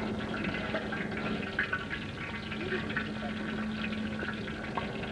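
Prawn and egg fritters frying in hot oil in a wok: a steady sizzle with many small crackles.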